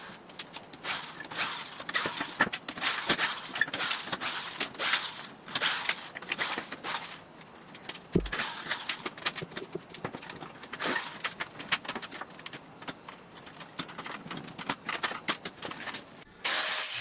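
Irregular clicks and knocks from taking apart a wooden body buck: a cordless drill-driver backing out screws and plywood and wooden pieces being handled and lifted off. One low thump comes about eight seconds in.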